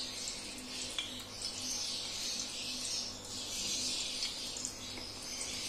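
Hot ghee sizzling softly in an aluminium kadhai around freshly added cardamom pods and seeds, a steady hiss that swells and eases, with a few faint crackles.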